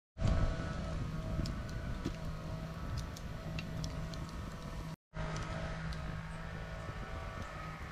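Wood fire crackling in a metal fire stand, with scattered sharp pops and a louder knock just after the start, over a steady low hum. The sound drops out briefly about five seconds in.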